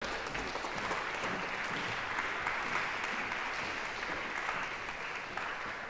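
Audience applauding, a dense patter of many hands clapping that starts to ease off near the end.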